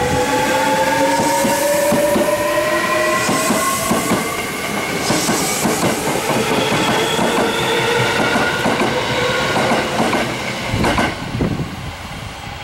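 Hankyu electric train pulling away close by: its traction motors give a whine that slowly rises in pitch as it gathers speed, over a dense clatter of wheels on the rails. The sound drops away suddenly about eleven seconds in.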